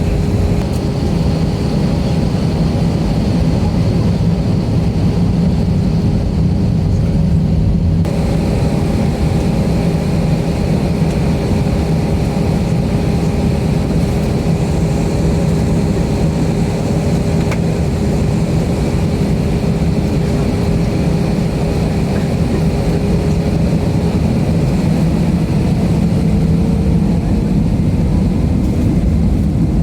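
Airbus A320-232's IAE V2500 turbofan engines heard from inside the passenger cabin: a steady loud drone with a constant whine over the low rumble, the whine rising slightly in pitch near the end.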